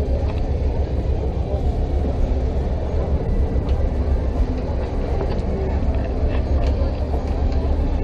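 Steady low rumble of wind and motion on a catamaran under way at sea, buffeting the microphone.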